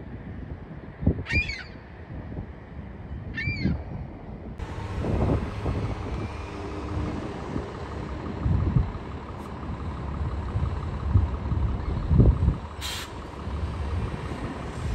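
A bird calls twice in the first few seconds. Then a CTA city transit bus runs close by with a low engine rumble, and gives a short hiss of air brakes about thirteen seconds in.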